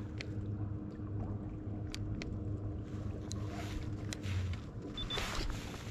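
Electric trolling motor (MotorGuide Xi3) humming steadily, then cutting out about four and a half seconds in. A few light clicks and a short rush of noise come near the end.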